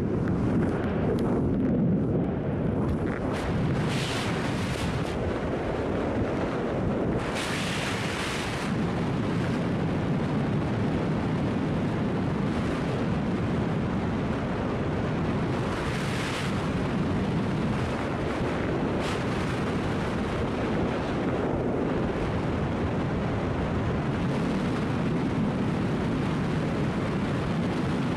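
Wind rushing and buffeting over the camera microphone during a tandem parachute descent under an open canopy, a steady low rumble with a few brief louder gusts of hiss.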